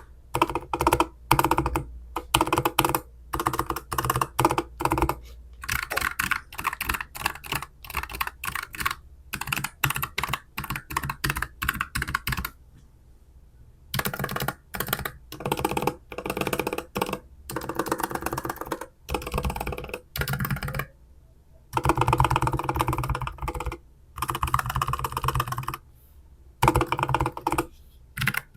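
Typing on a Keychron K15 Pro low-profile mechanical keyboard fitted with Gateron low-profile Banana tactile switches: quick runs of key clicks and clacks, broken by a couple of brief pauses.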